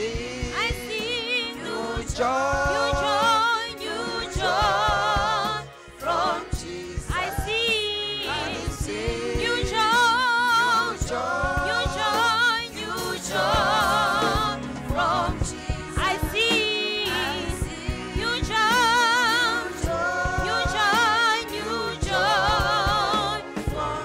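Gospel song: singing in phrases with wavering held notes over an instrumental backing.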